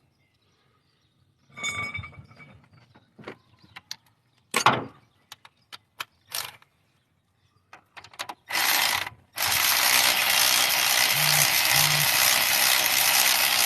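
Scattered clicks and knocks of hand tools on metal. Then, after a short burst about eight seconds in, a power ratchet runs steadily, backing out a head bolt.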